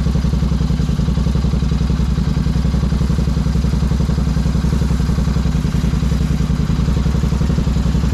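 Royal Enfield Continental GT 650's 648 cc parallel-twin engine idling steadily, with an even, rapid pulse.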